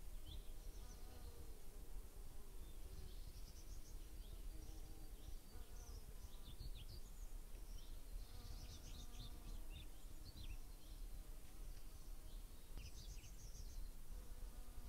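Outdoor ambience: small birds chirping in scattered bursts of short, quick notes, over a steady low wind rumble on the microphone.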